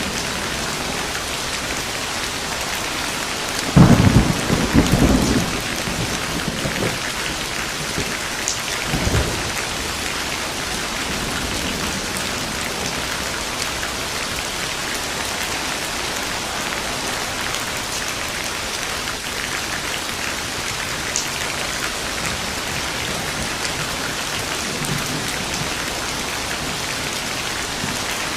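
Steady heavy rain falling, with a sharp clap of thunder about four seconds in that rumbles for a second or two, and a smaller rumble of thunder a few seconds later.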